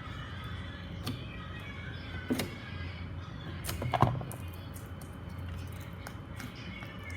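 Handling noises from the slime container: a few light knocks and clicks, the loudest about four seconds in, over a steady low hum.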